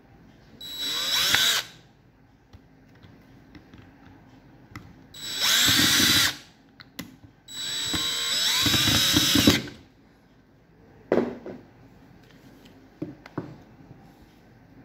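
Power drill motor whirring in three short bursts, its pitch rising and falling as it spins up and down. A couple of small clicks follow near the end.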